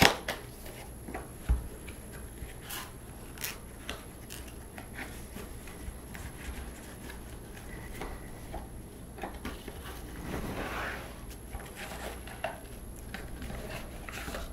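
Cardboard box and packaging handled by hand: a sharp tap at the start, a dull thump about a second and a half in, scattered light clicks, and a longer rustle about ten seconds in.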